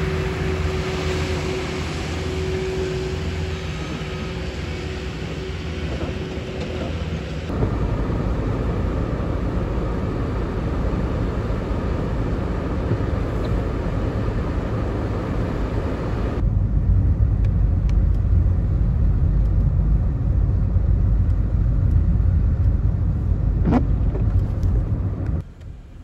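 Diesel engine of a Cat skid-steer loader running while it plows snow, with a steady whine over it. Then steady road and tyre rumble from inside a moving car on slushy roads, louder for the last part.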